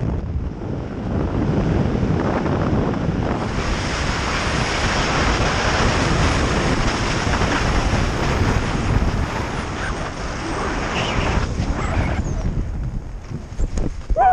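Wind rushing over a helmet camera's microphone while a skydiver dives a Sabre2 107 parachute canopy on front risers. It grows stronger and hissier a few seconds in as the dive picks up speed, and fades near the end as the canopy levels off just above the ground.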